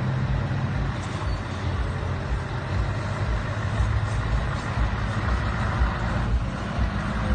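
Diesel engine of a Scania tractor unit running with a steady low drone as the truck drives slowly past at close range.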